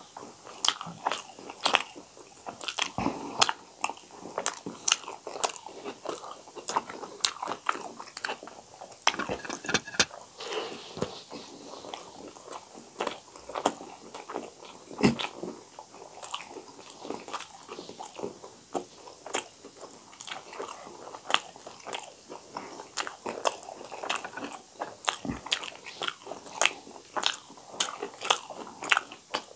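Close-miked chewing of steamed vegetable momos, with many irregular wet mouth clicks and smacks.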